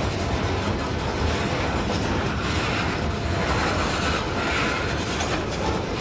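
Freight train cars rolling past: the steady rumble of steel wheels on the rails.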